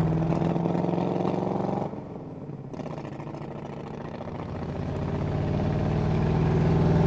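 Mercury flathead V8 of a 1951 Allard K-2 roadster running on the road. The engine sound drops sharply about two seconds in, then builds back up over the next few seconds.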